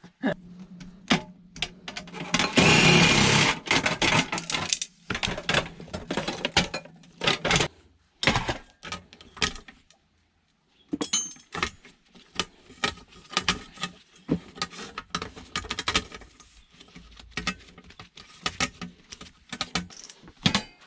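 Hand tools and metal parts clicking, knocking and clattering as a coffee machine is taken apart, with a loud noisy rattle about two and a half seconds in lasting around a second and a half.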